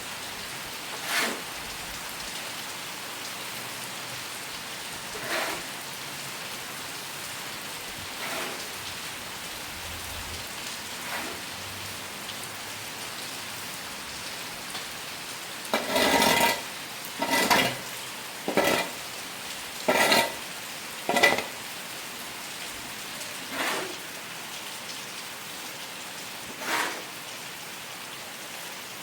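Steady rain falling, with short clinks or knocks now and then and a quick run of about six of them just past the middle.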